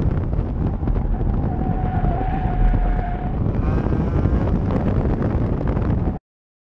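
A car driving hard on a track, heard from a camera mounted on its outside: heavy wind buffeting on the microphone over the engine and road noise, with a steady squeal in the middle and a brief wavering squeal after it, typical of tyres at the limit through a corner. The sound cuts off suddenly near the end.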